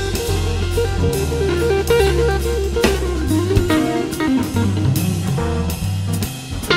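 Background music: a guitar melody over a bass line and a drum kit with a steady beat.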